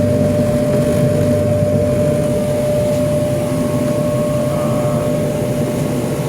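Air-floating glass table's blower running with a steady hum and a constant high whine.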